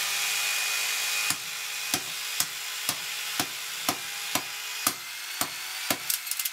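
G-Force BJ-350 jigsaw running steadily with no blade fitted and its switch locked on. A golf club strikes its housing about twice a second, beginning a little over a second in and coming faster near the end.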